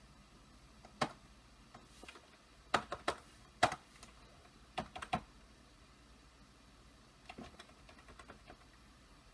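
Computer keyboard keys pressed one at a time: a few separate clicks and pairs, then a lighter run of quick taps near the end.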